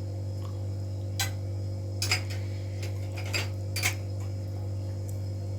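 A kitchen utensil clinking lightly against a saucepan about five times, at uneven intervals, while the skin is skimmed off freshly boiled milk. A steady low hum runs underneath.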